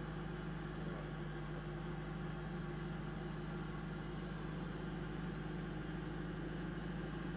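A steady, unchanging low mechanical hum of a running engine.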